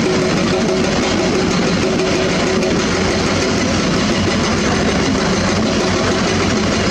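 Heavy diesel engines running steadily: a rock-loaded dump truck driving off, with a Hitachi excavator's engine running alongside.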